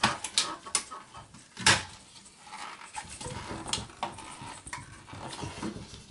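Plastic clips and sheet-metal parts of an HP Compaq Pro 4300 small-form-factor desktop chassis clicking and knocking as they are handled and pried to release a front clip. There are several sharp clicks, the loudest a little under two seconds in, with light rattling between them.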